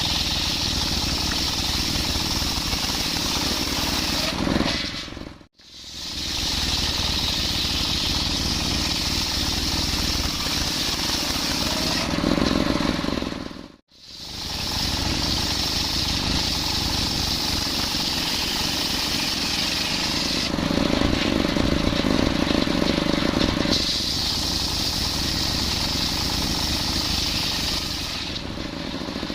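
Circular sawmill blade (serkel) running and ripping through coconut-palm wood, a steady loud cutting noise with a hissing high band over a low rumble. It cuts out briefly twice, and the lower hum grows stronger in stretches.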